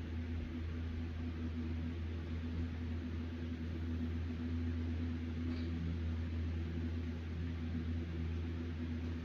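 Steady low machine hum at a constant pitch, with no clear knocks or impacts.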